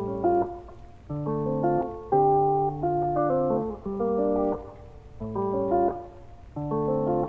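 Background instrumental music: guitar-like plucked chords in short phrases, each starting sharply and lasting about a second.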